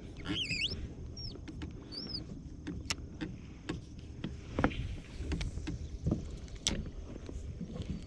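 Spinning rod and reel handled in a kayak: scattered light clicks and taps of the tackle, a cast, and the reel turning on the retrieve, over a steady low rumble of wind and water against the hull.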